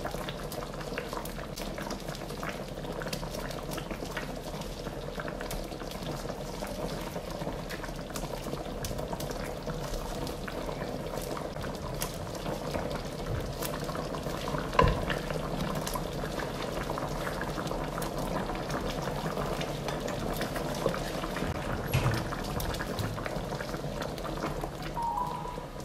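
Thick cornflour-thickened sauce boiling in a wok, a steady bubbling with a fine crackle of popping bubbles, as pieces of fried chicken are dropped in by hand. Two louder knocks stand out, about 15 seconds in and near 22 seconds.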